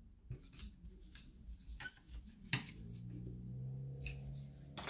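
Faint clicks and taps of a screwdriver tip against the alternator's voltage regulator and its plastic cover, one a bit louder partway through. A low steady hum runs for about two seconds near the end.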